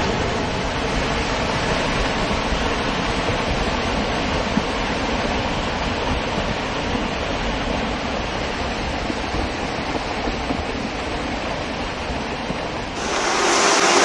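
Rockslide: rocks and debris pouring down a steep mountainside in a steady, noisy roar. About a second before the end it cuts abruptly to a louder, brighter noise.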